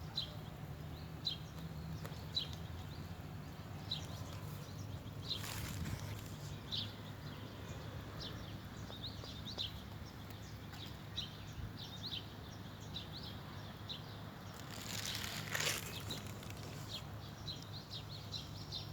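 Small birds chirping: many short, high chirps scattered throughout, over a steady low hum. A brief rush of noise comes about five seconds in, and a louder one about fifteen seconds in.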